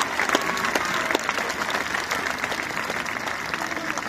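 A large audience applauding: a dense, steady clatter of many hands clapping that eases off slightly toward the end.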